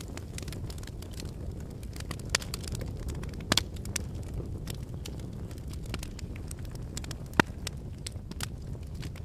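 Wood fire in a fireplace crackling over a steady low rumble of flame, with scattered sharp snaps and pops, a few louder ones about two and a half, three and a half and seven and a half seconds in.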